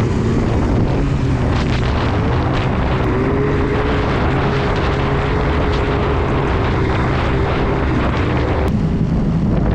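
A vehicle engine running steadily at a near-constant pitch, rising slightly about two and a half seconds in, under a loud rushing of wind on the microphone.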